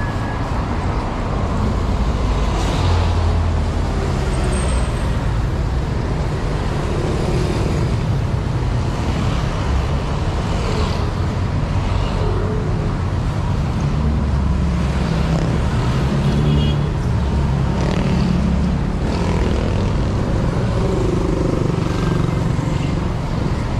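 Heavy road traffic passing close by: a steady, unbroken mix of car and bus engines and tyre noise.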